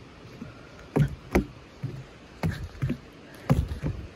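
Footsteps in sandals on wooden planks: a knock for each step, about two a second, starting about a second in.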